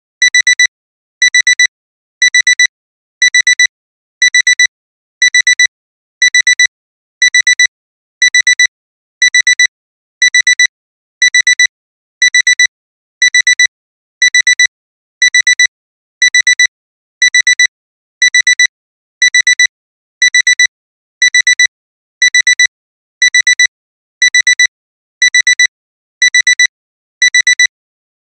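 Digital alarm clock beeping: short, high, steady-pitched electronic beeps in quick groups, repeating about once a second without a break. It is the alarm that sounds continuously once the timer has run out.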